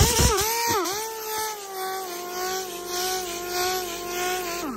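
Handheld power drill/driver motor running under load, with the trigger held for about four and a half seconds as it tightens a fastener. Its whine dips once near the start, sags slowly as it works and winds down near the end.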